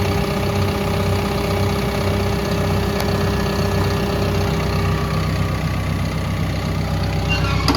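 Caterpillar D5K2 XL bulldozer's diesel engine idling steadily with a low, pulsing hum.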